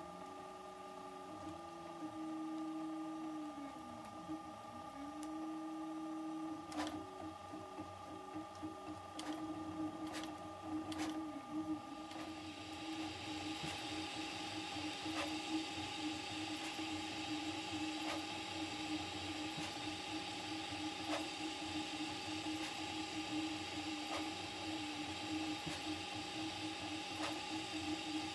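Prusa MK4 3D printer running a print at 30 mm/s: the stepper motors whine at a pitch that glides up and down as the print head changes speed, over a few steady tones. About twelve seconds in, a higher hiss joins, with light ticks every second or two.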